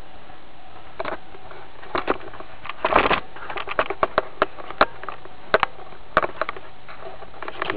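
Clicks and clatter of a Godaikin Bio Dragon toy's parts being handled as it is transformed into its flying vehicle form. Scattered sharp clicks begin about a second in, with a longer clatter about three seconds in and quick clicks after it.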